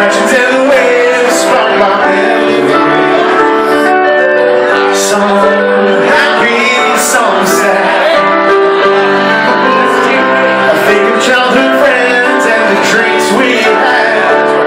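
A man sings a song live at the piano, with piano accompaniment throughout and a second piano playing alongside.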